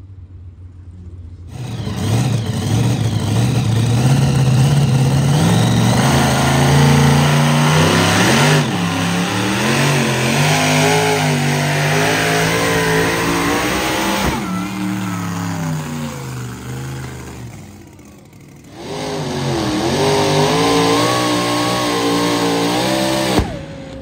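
Pulling vehicles' engines running hard at full throttle down the track under the sled's load, the pitch wavering and bending as the load changes. A second run comes in after a short dip about 18 seconds in, and the sound cuts off suddenly near the end.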